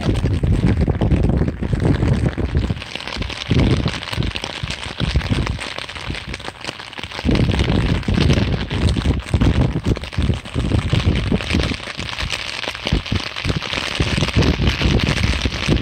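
Steady rain hiss, with irregular low rumbles and crackles as rain and gusts buffet the phone's microphone.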